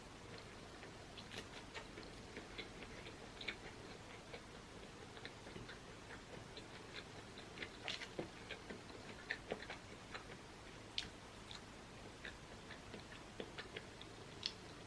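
Faint close-up eating sounds: a person chewing food, with many small, sharp wet mouth clicks at irregular intervals.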